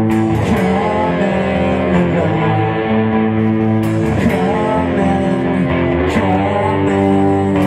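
Rock band playing live, with sustained electric guitar chords that shift about every two seconds.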